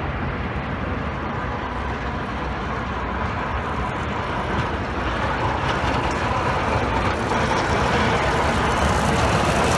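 Heavy sanitation truck approaching on a snowy street: a steady engine rumble and road noise that grow gradually louder as it nears.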